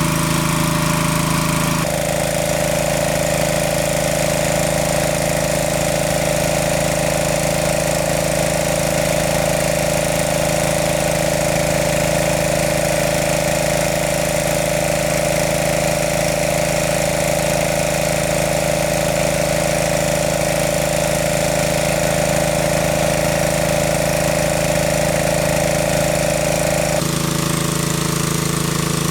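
Engine of a large water pump running steadily while it sucks water. The pitch pattern of the running sound changes abruptly twice, about two seconds in and near the end.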